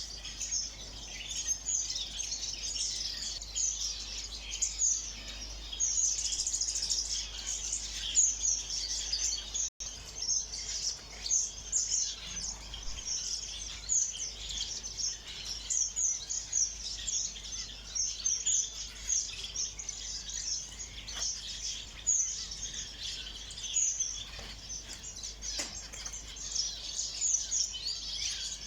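A flock of small ornamental aviary birds chirping together: a dense, continuous chatter of short, high chirps that cuts out for an instant just under ten seconds in.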